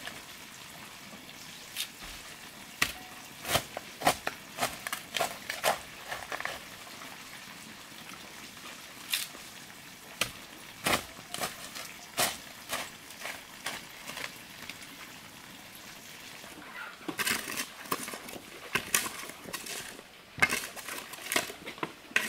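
Shovel blade chopping and scraping into dry soil: a run of irregular short strikes and scrapes with quieter gaps between the bursts of work.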